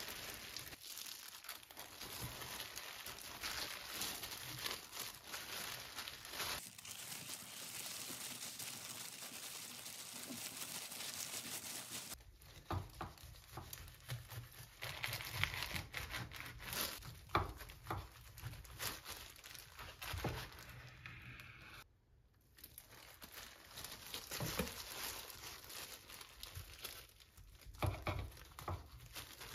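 Thin disposable plastic gloves crinkling as hands roll and press a gimbap (seaweed-wrapped rice roll). In the second half, a knife cuts through the rolls onto a wooden cutting board, with repeated separate knocks.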